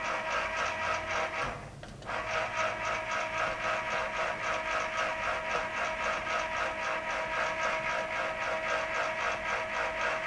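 Antenna rotor motor turning a pole-mounted pair of security cameras: a steady mechanical buzzing whir with a fast, even pulse. It drops out briefly just under two seconds in, then runs on.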